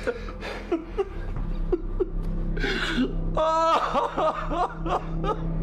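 An elderly man sobbing: short broken breaths and catches, then a rising cry of anguish about three and a half seconds in.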